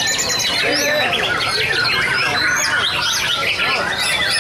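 Many caged white-rumped shamas (murai batu) singing at once: a dense chorus of overlapping whistles, rising and falling glides and trills with no pause.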